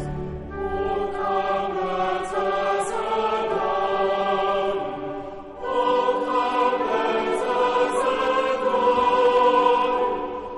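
Choral music: a choir singing long held notes. There is a brief dip about five and a half seconds in, and then a louder phrase begins.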